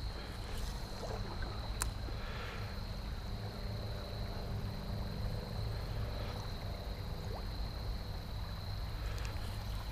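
Quiet outdoor background: a steady low rumble with a faint steady high whine, and a single sharp click about two seconds in.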